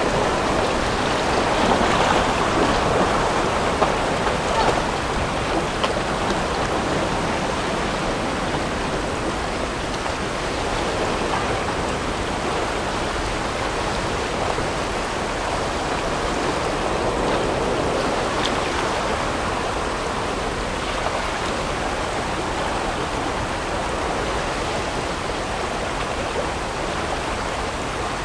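Whitewater rapids rushing close around a raft: a steady, loud rush of churning river water, a little louder with a few short peaks in the first five seconds.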